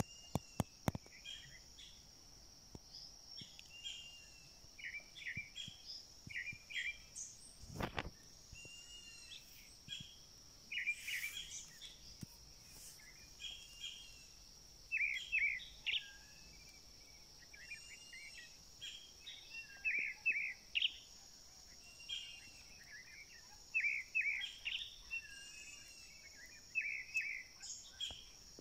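Songbirds calling in woodland: short chirping and whistled phrases come again and again, some in quick trills, over a steady high insect drone. One brief knock about eight seconds in.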